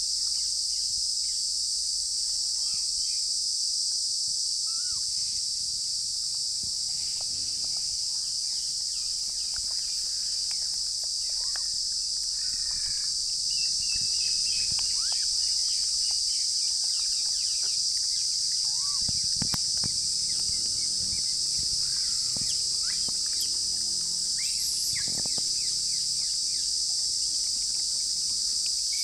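A steady, high-pitched chorus of insects drones without a break. Short, scattered chirping calls come over it now and then.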